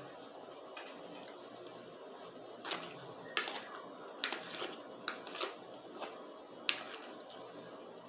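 Eating sounds: a fork twirling spaghetti and scraping and tapping on a plastic plate, heard as a scattering of short clicks and scrapes over a faint steady hum.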